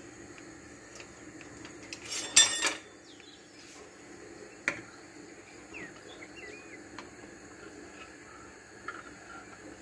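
Metal kitchen utensils clattering against dishes for a moment about two seconds in, then a single sharp clink a couple of seconds later and a few light ticks, over a low steady kitchen hum.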